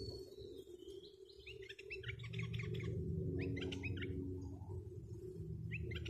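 Bulbul giving quick runs of chattering notes, in bursts about a second and a half in, around four seconds, and again at the very end, over a steady low hum.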